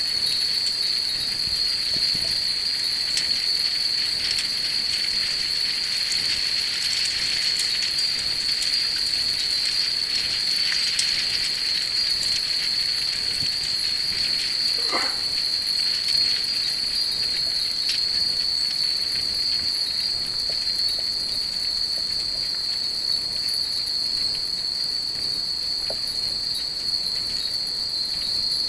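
Hundreds of Japanese wind chimes (furin) hanging in long strings, tinkling together without a break: a dense, steady high ringing with many small clinks, busiest in the first half.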